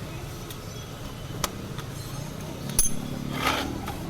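Two sharp metallic clinks, about a second and a half apart, over a steady low engine hum, with a short rustling scrape near the end.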